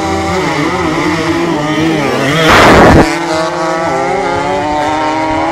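Two 175 cc stock-class drag-race motorcycles revving up and down at the start line, then accelerating hard away down the strip. A loud half-second rush of noise comes about two and a half seconds in, as they launch.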